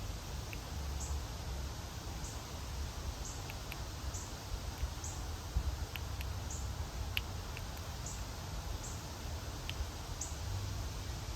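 A small bird giving a short, high chip call over and over, irregularly about once a second, over a steady low outdoor rumble.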